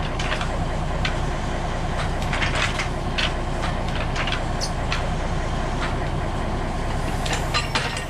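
Naturally aspirated Cummins slant-six diesel power unit running steadily, with scattered short metallic clicks and clanks as the sawmill's hydraulic log dogs are worked in and out against the log.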